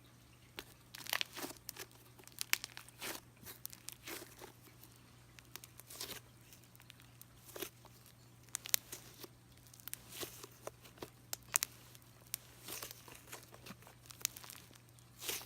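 Thick cream cheese-textured slime being squished and stretched by hand, giving irregular sticky crackles, clicks and small pops, several a second.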